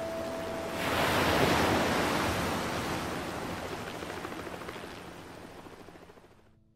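Apollo command module splashing down in the ocean: a loud rushing splash about a second in that slowly dies away and cuts off near the end.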